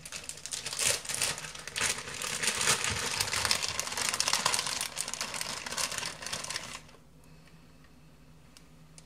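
Plastic bag of shredded cheese crinkling as it is handled, a dense crackle of plastic that stops about seven seconds in, leaving only faint sound.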